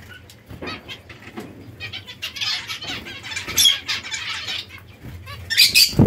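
Zebra finches calling, a busy chatter of short, high, nasal calls that is densest in the middle, with a louder flutter near the end.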